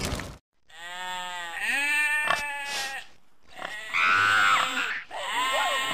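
Farm-animal sound effects: two long bleats, then short pig squeals starting near the end.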